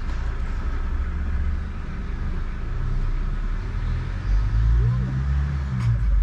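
Low, steady rumble of a motor vehicle engine running on the street. About five seconds in comes a short, faint cat meow.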